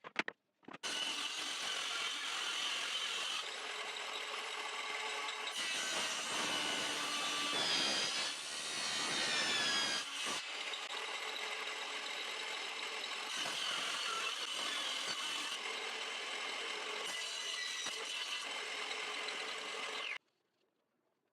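A power tool working wood, starting abruptly about a second in and cutting off suddenly near the end, its tone shifting several times as the load changes.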